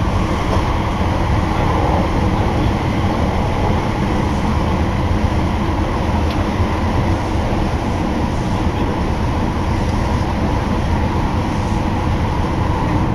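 Inside a running Osaka Municipal Subway Nagahori Tsurumi-ryokuchi Line linear-motor train: the car's steady low rumble and rushing noise in the tunnel.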